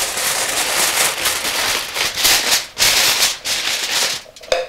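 Sheet of aluminium foil crinkling and rustling in repeated irregular bursts as it is spread over a pan and crimped down around the rim.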